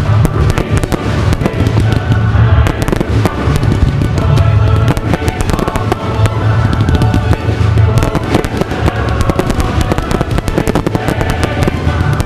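Aerial fireworks bursting in rapid succession: dense bangs and crackling from many shells at once, over loud music with a deep bass.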